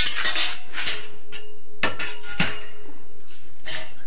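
Galvanized steel drywall profile clanking as it is handled: a sharp metallic knock at the start, then several more knocks and rattles, with a brief ring in the middle.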